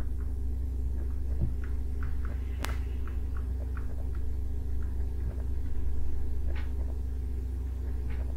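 Steady low electrical hum with faint, scattered light taps and clicks of a stylus writing on a tablet, one sharper click about two and a half seconds in.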